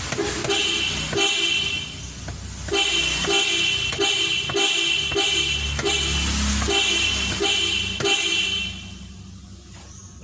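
Electric vehicle horn sounding in a quick series of short honks, about a dozen presses, over a low rumble; the honking stops about eight and a half seconds in.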